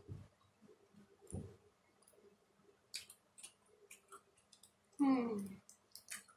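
Shell of a cooked shrimp being peeled by hand, a run of small crackling clicks in the second half, after a couple of soft thuds. About five seconds in, a short voice sound falls in pitch.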